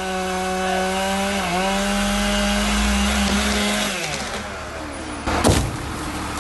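A small engine or motor running steadily, dipping briefly in pitch about a second and a half in and winding down near four seconds. A sharp knock about five and a half seconds in.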